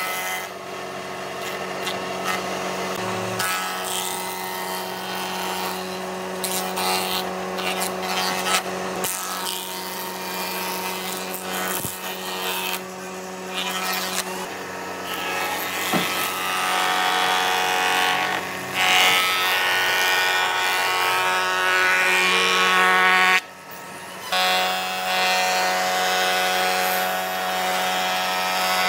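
Jointer running with a steady hum while a weathered wooden railway sleeper is fed across its spinning cutterhead, the knives planing the rough old surface. The sound drops out for about a second roughly three quarters of the way through, then resumes.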